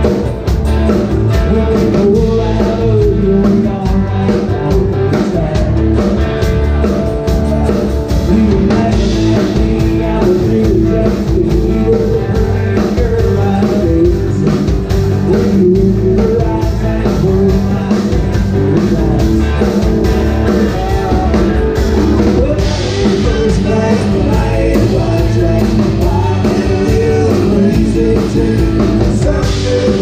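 Live band playing classic country: electric bass, electric and acoustic guitars and a drum kit, with a singing voice over them.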